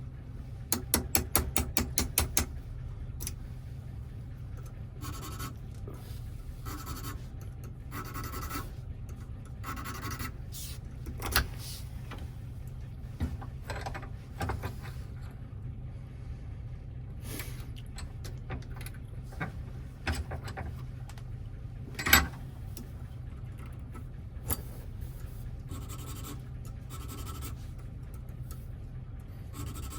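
Small metallic clicks and short scrapes from hand work on a Toyota door lock and its parts, over a steady low hum. A quick run of rapid ticks comes at the start, and a single sharper click about two-thirds through.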